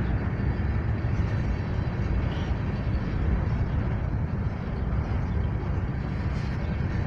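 Freight train rolling past with a steady rumble and wheel noise; no horn sounds.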